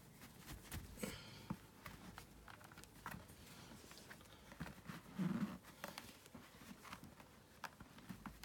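Soft rustling and handling of a cloth helmet bag with a helmet inside, with scattered small clicks and scrapes and a brief muffled thump about five seconds in.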